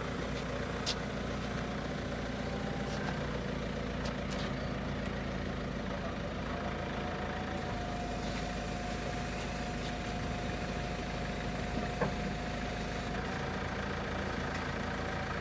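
Forklift engine idling steadily, with a few sharp clicks and one louder knock about twelve seconds in.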